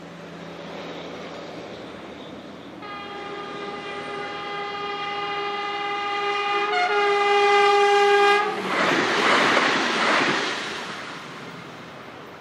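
CRRC Sifang diesel-electric multiple unit (DMU SFD-301) approaching with a rising rumble and sounding one long horn blast of about five seconds, then passing by with a loud rush of wheel and engine noise that fades away.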